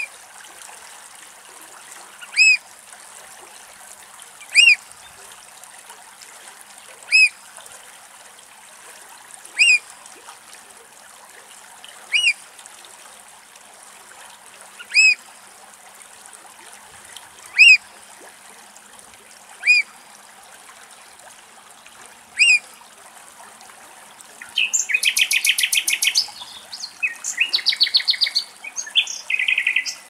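Eurasian oystercatcher calls: single loud, piercing notes that rise and fall in pitch, about one every two and a half seconds. Near the end they break into a fast run of rapid piping trills.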